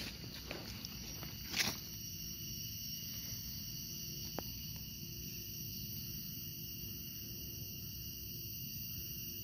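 Steady insect chorus holding several high, unchanging tones, over a low rumble. A brief rustle about a second and a half in and a single click about four seconds in.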